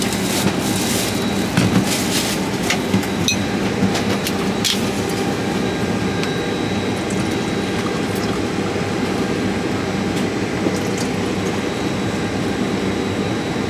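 Steady airliner cabin hum, with a few sharp clicks of a wine bottle's cap and glassware being handled in the first seconds, and wine pouring into a cup near the end.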